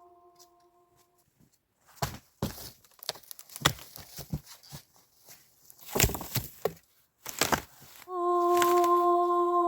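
A run of irregular sharp knocks and thuds, between stretches of background music of long held tones that fade out about a second in and come back near the end.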